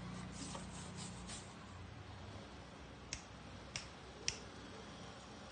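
Three short, sharp clicks a little over half a second apart, about three seconds in, over a low hum that fades out early.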